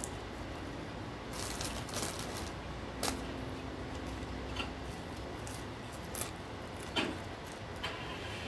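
A person eating fast food: chewing and mouth sounds with a scattering of short, sharp clicks and crinkles, over a steady low hum.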